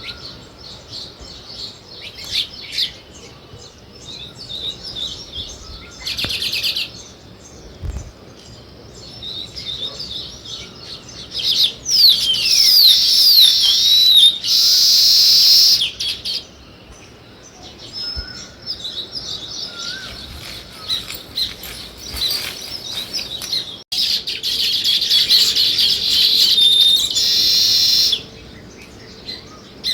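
House sparrows chirping, on and off, with louder, busier bouts of rapid chirping about halfway through and again near the end.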